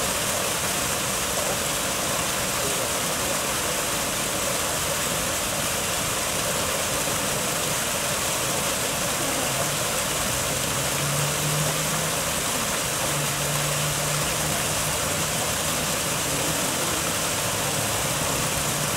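Water pouring over a small waterfall into a pond: a steady rushing noise. A faint low hum comes in about halfway through.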